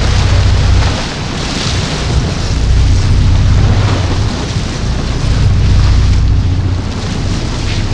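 Strong wind buffeting the microphone: a heavy low rumble with a rushing hiss over it, swelling and easing every couple of seconds.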